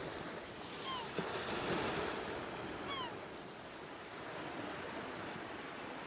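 Ocean surf washing steadily, with two short falling chirps about one and three seconds in.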